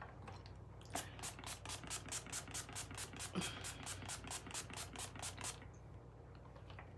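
Quick, even scratching strokes, about six a second, going on for about four and a half seconds and stopping shortly before the end.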